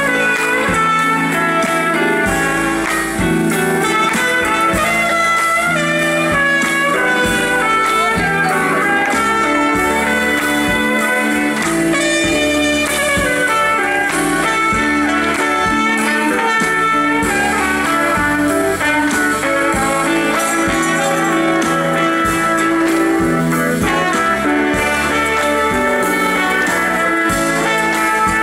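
Live band playing an instrumental passage: electric guitar and trumpet over bass guitar and keyboards.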